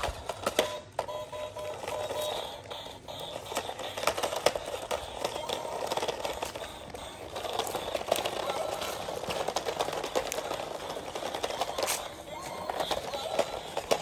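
Toy RC stunt car's built-in speaker playing poor-quality, hard-to-make-out music, while the plastic car clatters over brick paving with many sharp clicks and knocks as it drives and flips.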